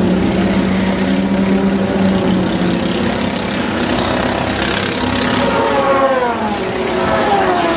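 Several go-kart engines running on the track, their pitches overlapping. In the second half the engine notes slide down in pitch as karts lift off and pass.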